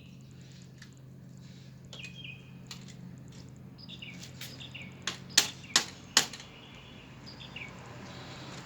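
Small birds chirping in short quick phrases several times, over a steady low hum. About halfway through come four sharp knocks in quick succession, the loudest sounds.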